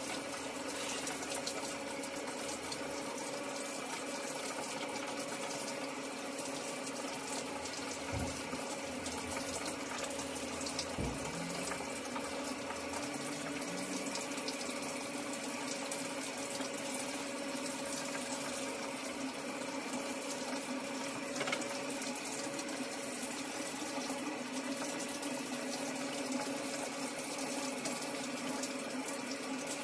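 Shower water running steadily, with a steady low hum underneath.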